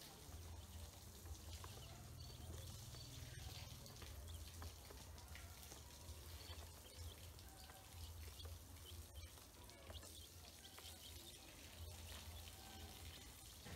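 Faint peeping of ducklings and chicks, with soft scattered clicks of bills pecking feed from a plastic basin, over a low steady hum.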